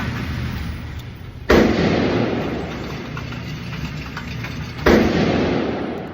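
Two gunshots about three seconds apart, each followed by a long echoing decay.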